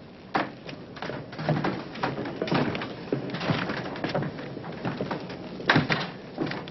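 Irregular knocks and clicks, a few each second, with the loudest pair near the end.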